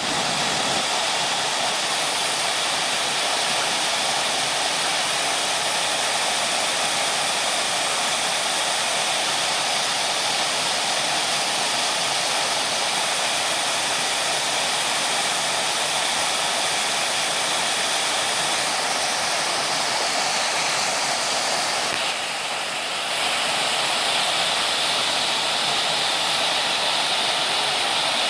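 Creek water rushing steadily, a loud even splashing hiss that dips slightly for about a second about three-quarters of the way through.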